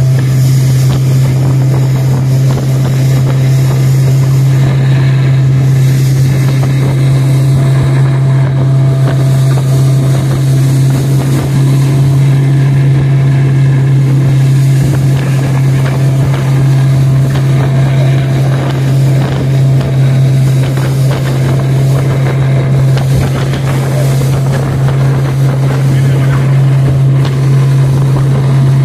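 Motorboat engine running steadily at cruising speed, a loud, unchanging low hum with water and wind noise over it.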